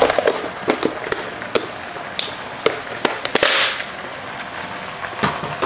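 Chicken pieces sizzling in a pot over a gas flame, with scattered sharp crackles and pops and a brief louder hiss about three and a half seconds in.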